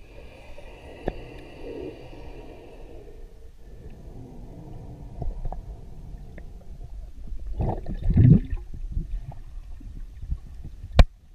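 Underwater noise picked up by a submerged camera during a spearfishing dive: a low rumbling and gurgling of moving water, a louder rush of water about eight seconds in, and a single sharp click near the end.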